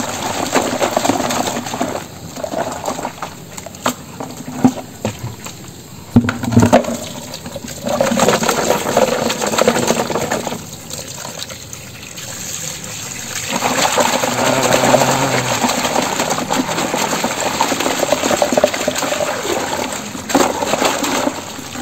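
Water from a garden hose pouring and splashing into a plastic bucket while hands swish and rub rubber engine drive belts in it, rinsing them clean. It swells and fades in stretches, with a couple of sharp knocks a little over six seconds in.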